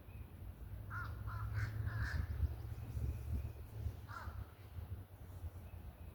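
A crow cawing: a quick run of about four harsh caws, then a single caw a couple of seconds later, over a low steady rumble.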